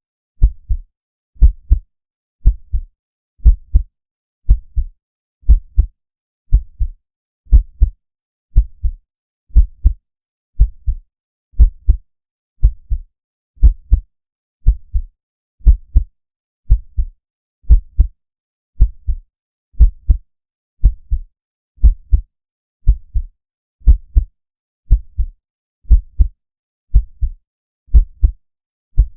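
Heartbeat sound effect: a slow, steady lub-dub, each beat a pair of deep bass thumps, about one beat a second.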